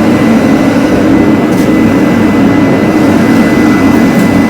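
Forge running: a loud, steady rushing noise, with a faint high whine held through it.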